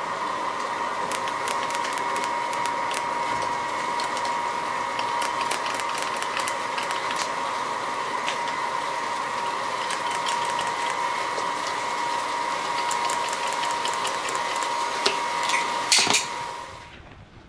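TIG welding arc on stainless steel: a steady high whine with light crackling throughout. A couple of sharper clicks come near the end, then the arc cuts off suddenly.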